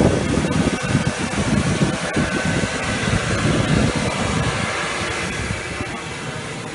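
Loud steady rush of an airliner cabin's air conditioning, with a fluttering low rumble over the first few seconds as the phone is carried up the stairs, easing off after that.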